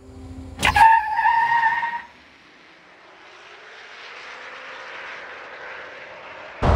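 GMC Hummer EV pickup accelerating: a sudden start with a high electric-motor whine, rising slightly, and tyre noise for about a second. Then a softer rushing noise that slowly grows louder.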